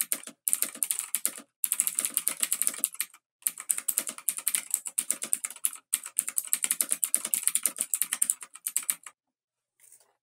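Rapid clicking like fast typing on a keyboard, in bursts broken by short pauses. It stops abruptly about nine seconds in, and a few faint single clicks follow.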